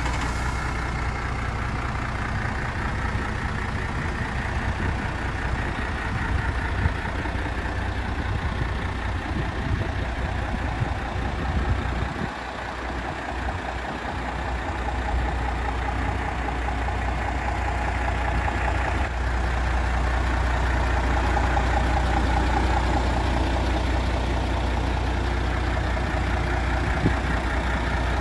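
Diesel engine of a MAN TGX 26.440 tractor unit idling with a steady low rumble, which dips briefly about halfway through.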